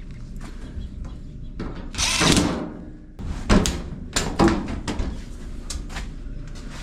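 Hardware and tools being handled while working on a dryer: a loud rattling scrape about two seconds in, then a run of sharp metallic clanks and clicks, typical of rummaging for screws and fitting parts back on.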